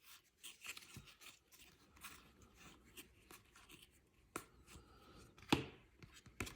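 Baseball trading cards handled and flipped by hand: faint rustling and light ticks of card stock sliding, with a few sharper card snaps near the end.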